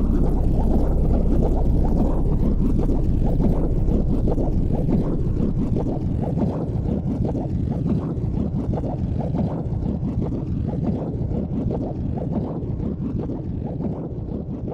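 Wind buffeting a phone's microphone: a low, rumbling roar with no clear tones that slowly fades over the last few seconds.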